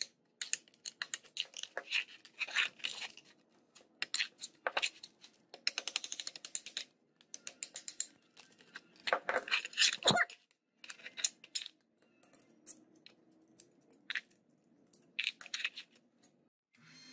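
A thin metal rod prying and scraping at small drilled-out steel plates on a cleaver's tang, with irregular metallic clicks and clinks as the freed plates are knocked loose and set down on a wooden bench. The loudest clatter comes about nine to ten seconds in.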